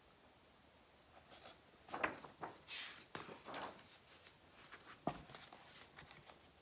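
Faint handling noise as a hardcover picture book is picked up: a few knocks and a sliding rustle about two to four seconds in, then a sharp tap about five seconds in.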